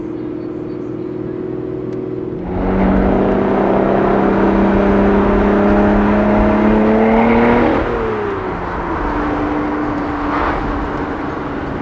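Lotus Evora's 3.5-litre V6 through a loud aftermarket PbRacing exhaust, heard from inside the car. It runs steadily at first, then about two and a half seconds in it opens up under hard acceleration, its note rising slowly for about five seconds. The pitch then drops sharply and it settles into a steady lower note.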